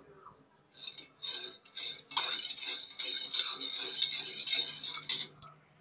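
Steel spoon stirring and scraping around an aluminium pot of chilli sauce being thickened with cornflour: a continuous scraping that starts about a second in and stops shortly before the end.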